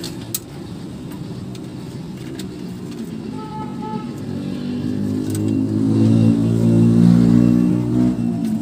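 A motor vehicle's engine running outside, growing louder from about halfway and easing off near the end, over a steady low traffic rumble. A short faint two-tone toot comes about three and a half seconds in, and a few sharp clicks of plastic parts being handled.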